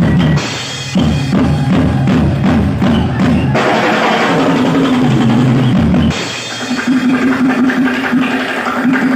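Live drum kit playing fast rolls and fills on snare, toms and bass drum, over sustained band accompaniment. The playing drops back briefly twice, just under a second in and around six seconds in.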